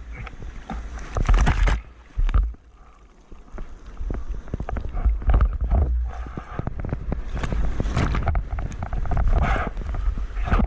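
Seawater splashing and rushing around a surfer, with wind buffeting the microphone in a heavy low rumble and irregular loud splashes, quieter for a moment a little after two seconds in.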